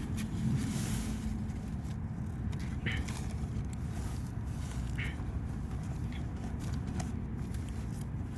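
Steady low background rumble with a few faint, brief rustles of items being handled, about one, three and five seconds in.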